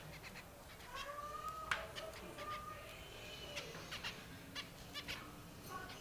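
Zebra finches giving a few short calls, mixed with scattered sharp clicks and taps from the birds moving about the wire cage. The loudest click comes a little under two seconds in.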